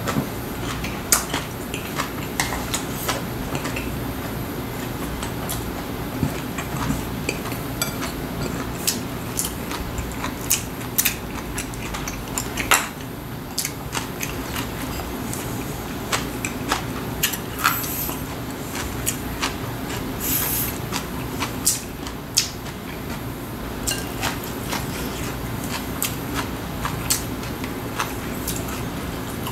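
Chopsticks clicking and tapping against ceramic bowls and plates during a meal, with chewing and handling of food in a cabbage-leaf wrap, scattered short clicks over a steady low hum.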